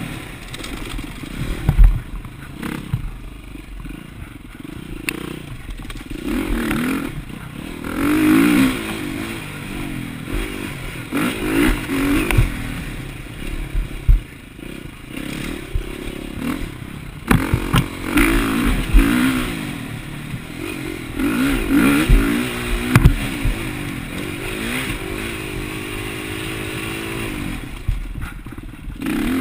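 Dirt bike engine revving up and down as the throttle is opened and closed on a rough trail, with clatter and thuds mixed in. A sharp knock about two seconds in is the loudest sound.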